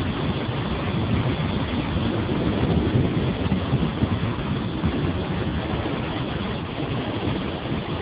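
Steady noise of a vehicle driving along a road, engine and tyre noise with wind buffeting the microphone.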